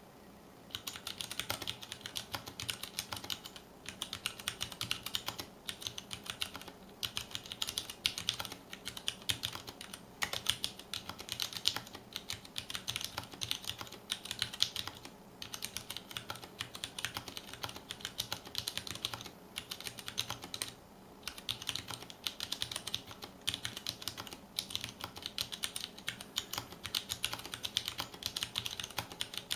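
Fast typing on a mechanical keyboard with Cherry MX Brown switches, thin ABS keycaps, a stainless steel plate and an acrylic case: rapid key clacks that start about a second in, broken by a few short pauses.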